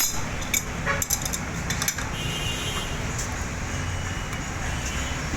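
A few sharp metallic clinks and taps of tools and bicycle parts being handled, over a steady low background hum.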